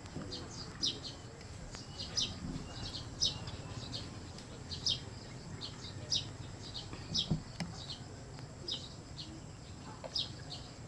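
Birds chirping: short, sharp, high calls repeating about once or twice a second over a steady outdoor background.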